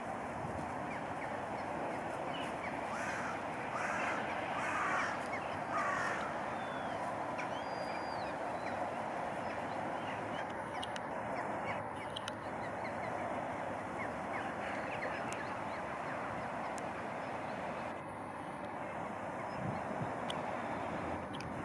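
Birds calling outdoors over a steady background hiss: about four loud calls follow one another between about three and six seconds in, and small chirps are scattered throughout.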